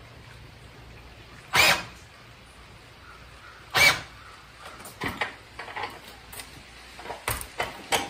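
A cordless drill drives the screw of a car scissor jack on a homemade apple press in two short pulses about two seconds apart, tightening the press onto the bagged apple pulp. A run of light clicks and knocks follows.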